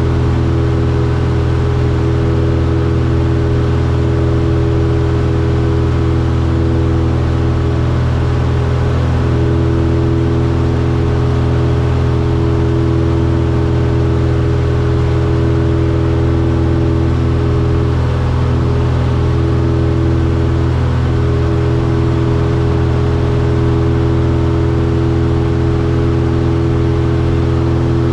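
Cessna 172F's six-cylinder Continental O-300 engine and propeller running steadily in flight, heard from inside the cabin as a constant low drone with a steady higher hum over it.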